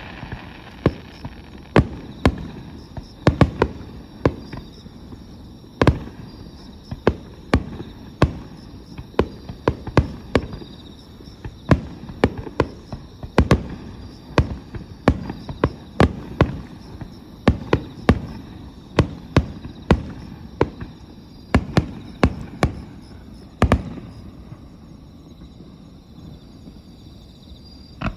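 Fireworks bursting overhead: a rapid string of sharp bangs and crackles over a low rumble, thinning out after about 24 s.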